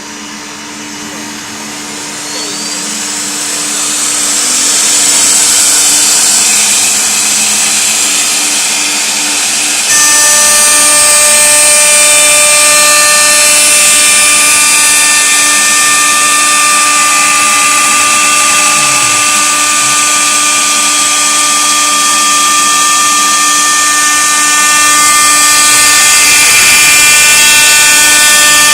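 CNC router spindle running as a steady high whine with several held tones, growing louder over the first few seconds. About ten seconds in the level steps up suddenly and new tones join, then it runs on steadily.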